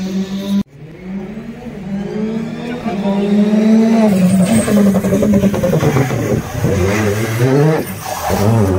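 Rally car engine revving hard as it approaches and threads a chicane, its pitch climbing and dropping again and again through gear changes and lifts off the throttle, loudest in the second half. The sound cuts off abruptly just under a second in and builds back up from quiet.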